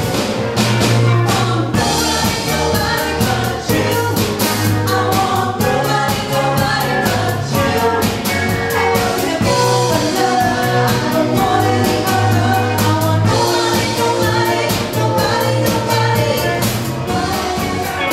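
A live rock/pop cover band playing: a woman singing lead over electric guitars, a bass line and a drum kit with cymbals, at a steady loud level.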